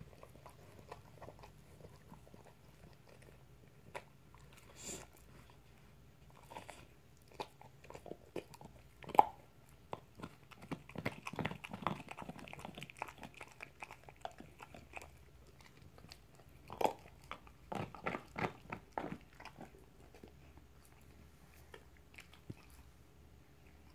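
A dog licking and gnawing a marrow bone: wet licks, smacks and teeth clicking on bone in irregular bunches, with quieter stretches between and one sharp, loud click about nine seconds in.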